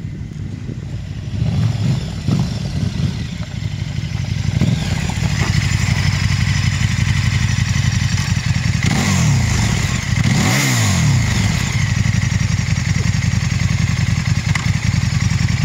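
KTM 1290 Super Duke's V-twin engine running, louder over the first few seconds and then steady, with one rev that rises and falls about ten seconds in.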